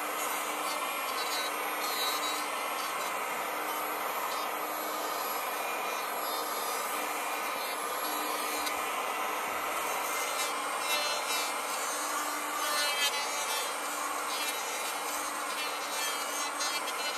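Handheld electric planer running steadily as its cutter head shaves down a wooden oar blank, rounding off the edges of the octagonal stock.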